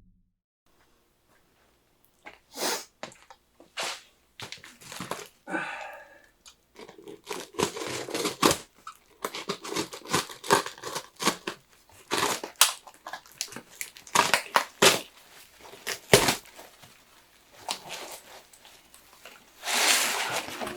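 Packaging being torn open and crumpled by hand: a run of irregular tearing, crinkling and crunching noises that starts about two seconds in, with a longer rustle near the end.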